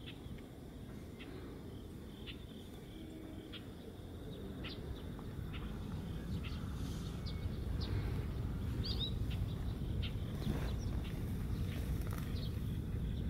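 Scattered short, high chirps and whistled notes of a small songbird, with a quick rising pair of notes about nine seconds in, over a steady low rumble that grows louder after about four seconds.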